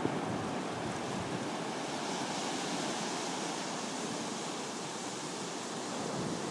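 Ocean surf: small waves breaking offshore and washing up a flat sandy beach, a steady rushing hiss.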